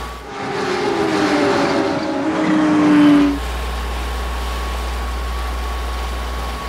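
Porsche 911's flat-six engine running hard, its pitch sinking slowly as it grows louder, then cut off sharply about three seconds in. A steady low rumble follows.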